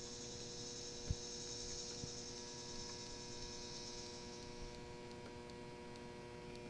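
Faint, steady electrical hum with a high hiss that fades out about two-thirds of the way through, and one faint tick about a second in.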